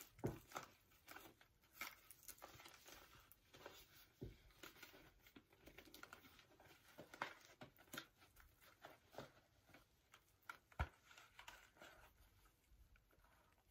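Faint handling sounds of a ski helmet: Velcro being pulled and pressed, with rustling and scattered light clicks and taps, and one sharper knock near the end as the helmet goes on.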